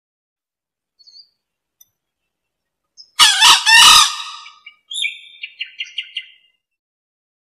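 Male green junglefowl crowing once, a short hoarse call in about three parts, about three seconds in, with a few faint high chirps before it and a quick run of short, higher notes after it.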